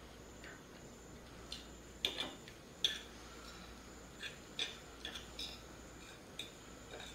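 Cutlery clinking and scraping against a plate during eating: a dozen or so irregular sharp clinks, the loudest two just after two seconds and near three seconds in.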